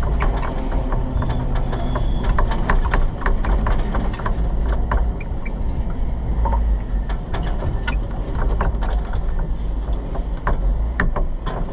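Pierce tiller ladder truck on the move: a steady low rumble from the engine and road, with frequent sharp rattles and clicks.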